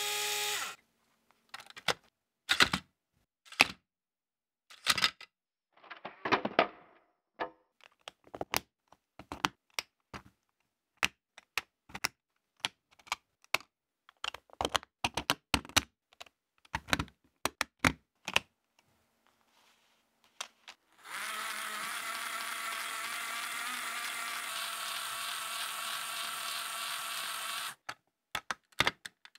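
Lego Technic pieces clicking and snapping together by hand, an uneven run of sharp clicks. About two-thirds through, a small Lego electric motor starts and runs steadily through its reduction gearbox for several seconds, lifting the barrier arm, then stops suddenly, followed by a few more clicks.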